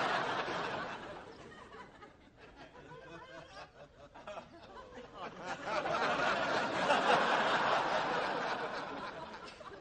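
Sitcom studio audience laughing, the laughter dying away over the first couple of seconds, then a second swell of laughter from about five and a half seconds in that fades out near the end.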